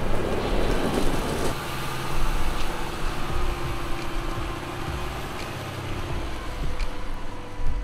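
Mercedes-Benz Unimog off-road truck driving under load. Its diesel engine runs while the tyres crunch over loose gravel for about the first second and a half. After that the engine hum is steadier as the truck climbs a steep slope, and a brief knock comes near the end.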